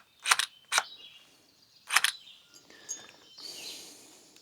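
Several short, sharp clicks, about four in the first two seconds, from the removed EGR valve and its battery test leads being handled and switched on the bench; a faint hiss follows near the end.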